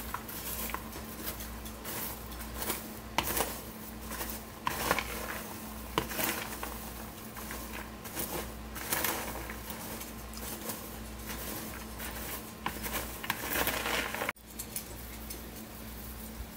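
Buttered popcorn being stirred with a metal spatula in a plastic bowl: light rustling of the popped kernels with irregular scrapes and taps of the spatula against the bowl, over a low steady hum.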